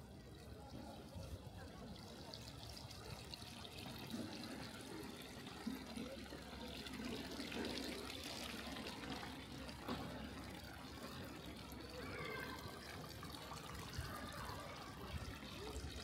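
Running water trickling and splashing, growing louder over the first several seconds, with a few sharp knocks.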